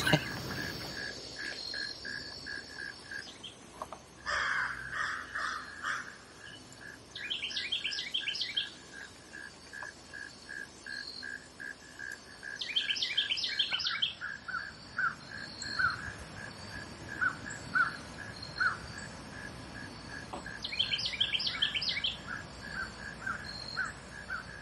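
Woodland ambience: insects keep up a steady run of short chirps over a fainter high trill, and bird calls break in three times, at about seven, thirteen and twenty-one seconds in.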